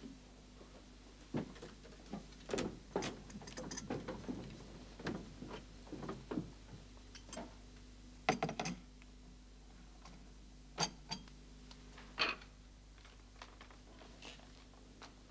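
Faint, irregular knocks and clicks of footsteps and of china cups being handled, with a few sharper clinks, over a low steady hum.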